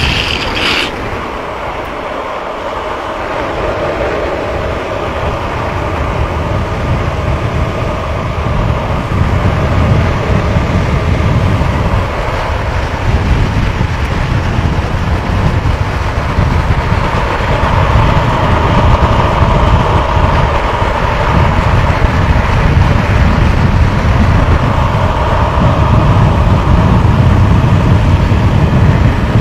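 Longboard wheels rolling fast on asphalt: a steady rumbling roar with a hum in it, dipping slightly in the first few seconds and then building. About a second in, a high squeal of urethane wheels in a hand-down slide cuts off.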